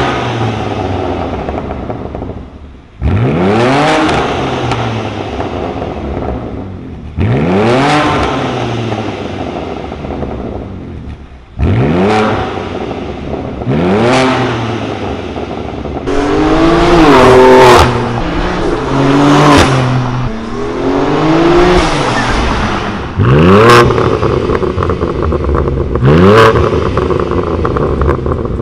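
BMW G80 M3's twin-turbo inline-six revving through a Fi Exhaust valvetronic catback: a series of sharp free-revs, each rising quickly and falling back to idle, a few seconds apart. There is a quicker run of blips in the middle.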